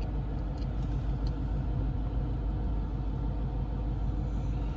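Steady low rumble of a car heard from inside its cabin, consistent with the engine idling, with a few faint light clicks in the first second or so.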